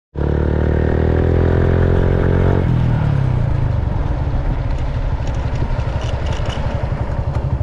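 Motorcycle engine running under way while riding, with wind and road rumble. The engine note climbs slightly, then drops about two and a half seconds in and carries on steady and rougher.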